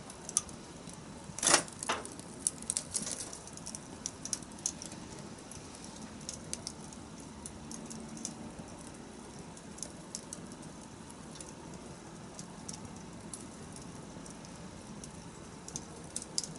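Wood fire crackling: irregular sharp pops and snaps over a low hiss, with the loudest pop about a second and a half in and a quick run of pops after it, then sparser pops.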